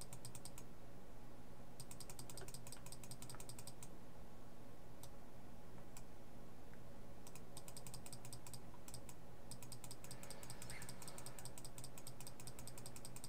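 Computer mouse button clicked rapidly over and over, in short runs at first, then in a near-continuous stream of several clicks a second through the second half, over a low steady hum. The clicks step a numeric setting up one increment at a time.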